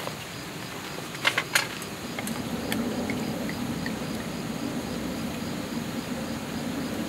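A few sharp clinks of tableware about a second in, then a steady low rushing that holds to the end, with crickets chirping faintly throughout.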